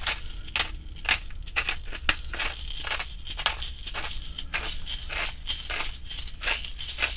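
Hand-twisted pepper grinder cracking black peppercorns: an irregular run of crunchy clicks, several a second, as the mill is turned.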